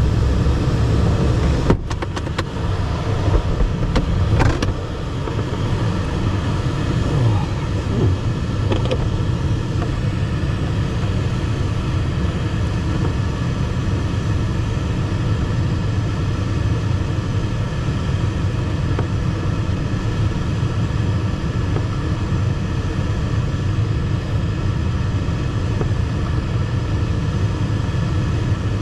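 Steady in-flight rumble inside the cockpit of an ASW 15 glider, with a sharp click about two seconds in and a slight drop in level near five seconds.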